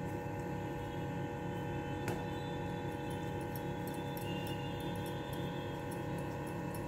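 Steady background hum with a faint click about two seconds in.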